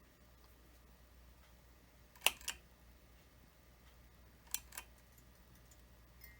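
Two pairs of sharp clicks, about two seconds apart, as the ceiling fan's preheat fluorescent light is switched on again for repeated startups.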